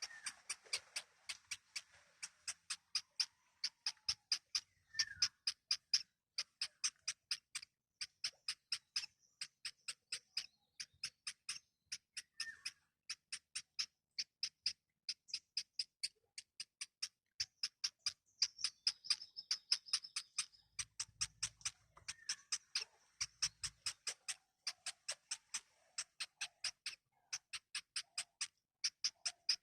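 Baby birds in the nest peeping: short, high-pitched cheeps repeated evenly, about three a second, without pause.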